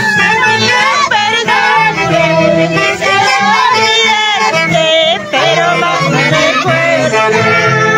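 Orchestra music in the Huánuco folk style: a wavering, vibrato-laden melody over a steady repeating bass, with a voice singing along.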